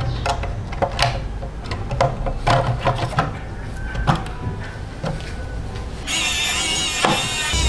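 Light, irregular clicks and knocks of a diecast Mercedes-Benz L911 scale model truck being handled and turned over, with background music underneath that swells suddenly about six seconds in.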